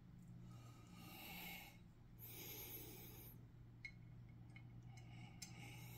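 Faint room tone with two soft breaths through the nose close to the microphone, then a few small clicks as tiny landing-gear pieces are pressed onto a diecast model airliner. A low steady hum runs underneath.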